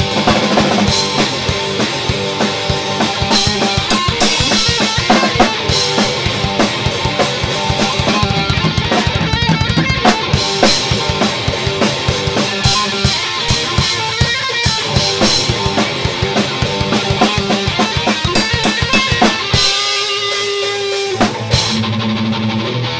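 A band playing an instrumental rock song on electric guitar and drum kit, the drums fast and dense with bass drum and snare hits. About twenty seconds in, the drums stop for a moment and the guitar rings on alone before the band comes back in.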